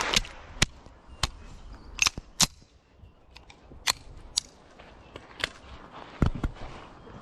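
Pistol shots from elsewhere on the range: about nine sharp single cracks at irregular spacing, a few of them close together.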